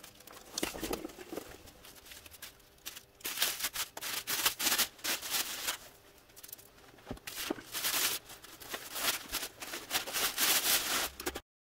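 Cloth rustling and handling noises in irregular bursts as a fabric cover is pulled off a rear axle.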